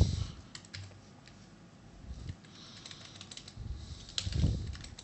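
Computer keyboard typing in scattered short runs of keystrokes, with a short dull low thud about four seconds in.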